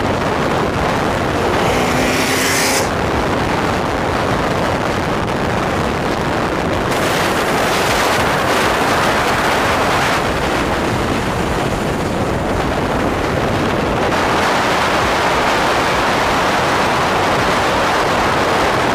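Steady rush of wind on the microphone mixed with tyre and road noise from cars travelling at highway speed.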